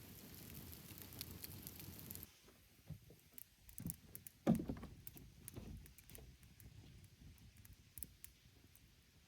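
Wood campfire crackling with scattered sharp pops. A steady hiss cuts off about two seconds in, and a dull knock about four and a half seconds in is the loudest sound.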